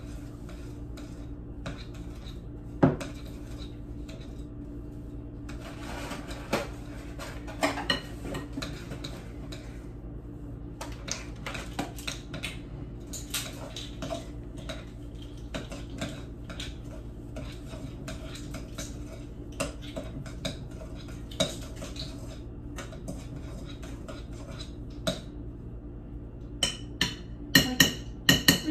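A metal spoon scraping and clinking against a glass mixing bowl as stiff cookie dough is mashed and stirred by hand, creaming the butter without a mixer. The clinks come at irregular moments, with one sharp clink about three seconds in and a quick run of louder clinks near the end.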